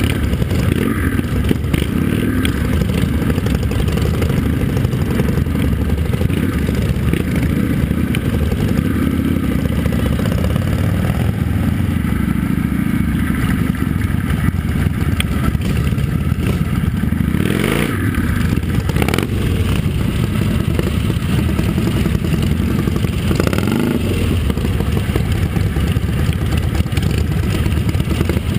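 Motorcycle engines running at low speed in a slow-moving group ride, with one engine revved up briefly about 17 seconds in.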